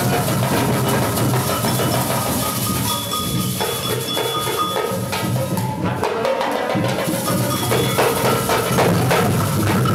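Young children playing together in a samba percussion group, with drums, small stick-struck hand drums and shakers keeping a steady beat. The low drum drops out for about a second around six seconds in, then comes back.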